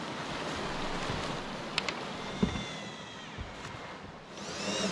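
Cordless drill whining briefly near the end as it drives a screw into the plywood deck, over a steady hiss of wind. A couple of knocks on the deck come earlier.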